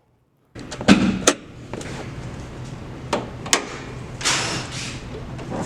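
Workshop clatter: several sharp metal knocks and clanks over a steady low hum, with a short hiss a little after the middle.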